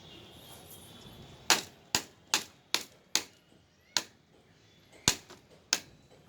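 About eight sharp plastic knocks and clicks, the first five in quick succession and the rest more spread out: UPVC pipes and fittings being knocked and pushed together while a pipe stand is assembled.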